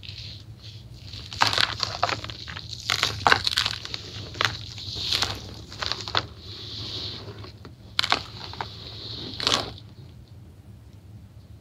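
Dry white powder poured and shaken over a basin of grey blocks: a hiss with a run of sharp, crunchy crackles from about a second and a half in until near the end.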